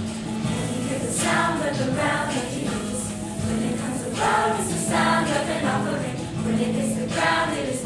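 A choir singing in phrases that swell and fade every second or two, over a steady held low note.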